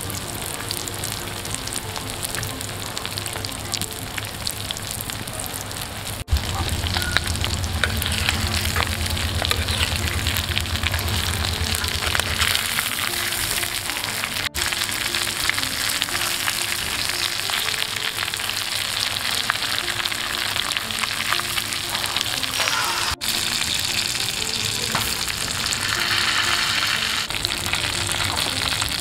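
Rawa-coated vaam fish slices shallow-frying in hot oil in a pan over a wood fire, a steady sizzle that gets louder after a brief break about six seconds in; a spatula turns the pieces partway through. Light background music plays underneath.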